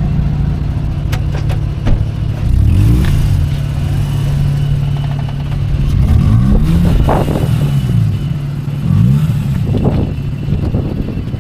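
Rotary-engined Mazda idling with a steady drone, blipped several times so the revs rise and fall quickly, mostly in the second half.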